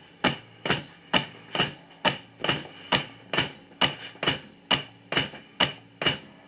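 Brunswick HLR (heart lung resuscitator), an oxygen-powered mechanical chest-compression 'thumper', cycling its plunger against a CPR manikin's chest: a steady, even clacking about twice a second. This fits the machine's rate of about 65 to 70 compressions a minute.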